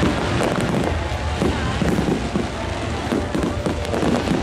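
Fireworks going off: a dense run of sharp pops and crackles over a continuous low rumble.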